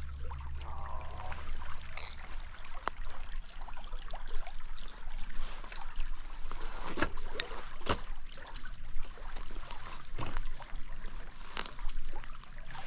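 Trout stream water running and splashing, with a few sharp clicks or knocks scattered through.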